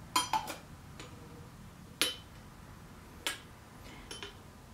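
Stainless steel cocktail shaker being capped: a few sharp metallic clicks and clinks, the loudest at the start and about two seconds in with a brief ring, then softer ones later.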